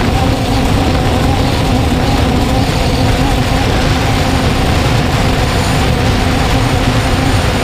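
3DR Solo quadcopter's electric motors and propellers running steadily in flight, heard from the camera mounted on the drone: a steady hum with a couple of held tones over a heavy low rumble.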